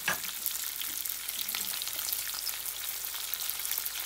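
Sliced potatoes and whole spices (cumin seeds, red chilli flakes) sizzling in hot butter in a pot on a high flame: a steady hiss full of fine crackles.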